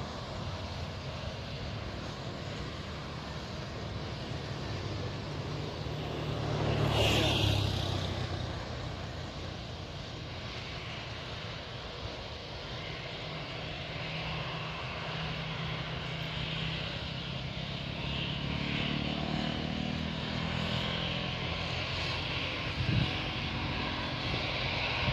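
Jet airliner engines droning steadily at a distance, with a pitch that slowly rises in the last third. About seven seconds in there is a brief louder swell of noise.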